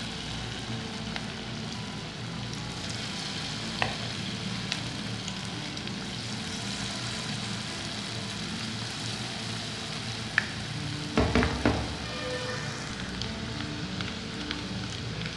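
Battered cabbage and mushroom pieces deep-frying in hot oil in a kadai, a steady sizzle and bubbling. A few sharp clicks come through, and there is a short cluster of knocks about eleven seconds in.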